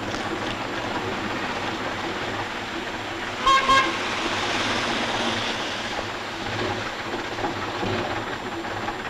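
Street traffic noise, broken about three and a half seconds in by two quick toots of a vehicle horn.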